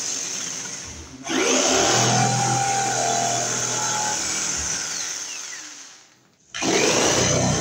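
Sears Craftsman saber saw running as it cuts a box opening in a wall, with a high motor whine. It stops briefly about a second in, then near the end winds down with a falling whine to a brief stop and starts up again.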